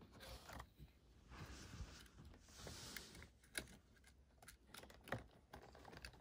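Faint rustling and small clicks of wires and plastic connectors being handled inside an electric scooter's deck, with a couple of sharper clicks in the second half.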